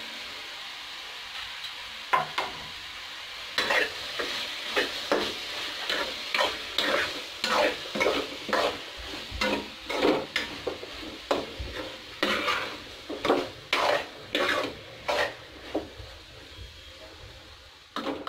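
Soya chunks sizzling in oily fried masala in a kadhai, stirred with a steel spoon that scrapes and clinks against the pan about twice a second. The stirring starts about two seconds in and eases off near the end.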